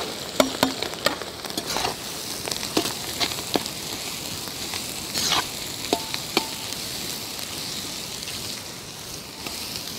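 Sliced shallots frying in hot oil in an iron kadai, sizzling steadily, while a perforated steel ladle stirs them and clicks and scrapes against the pan every second or so, mostly in the first half.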